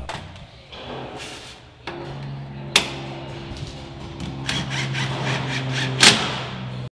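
Cordless drill running at a steady speed as it drives a fastener into a garage door's steel track, starting about two seconds in, with two sharp clicks. It stops abruptly at the end.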